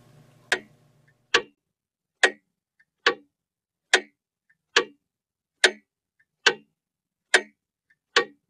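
Clock ticking steadily, just over one sharp tick a second, with a much fainter click after every second tick.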